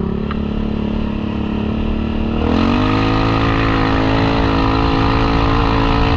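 Yamaha Kodiak 700 ATV's single-cylinder engine running steadily, then revving up about two and a half seconds in and holding the higher speed as the quad accelerates.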